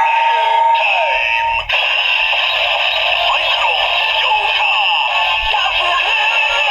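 Electronic music playing through the small built-in speaker of a DX W Double Ridewatch toy, thin with no bass. The sound switches abruptly to a new passage about a second and a half in.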